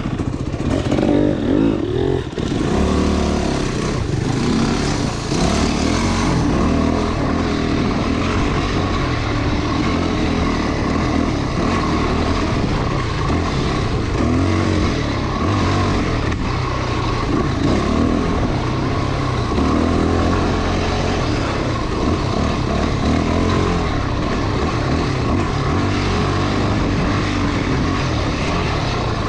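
Trail motorcycle engine running steadily as it is ridden, its pitch rising and falling with the throttle, under a steady rush of noise.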